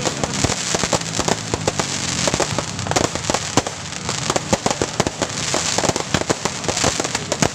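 Fireworks and firecrackers going off thick and fast: a constant crackle with many sharp pops and bangs each second.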